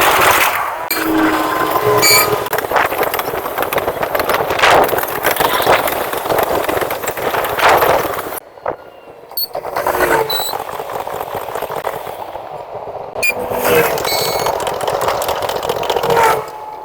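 D20E diesel locomotive and train passing at speed: loud rushing wheel-on-rail noise that drops out abruptly a few times.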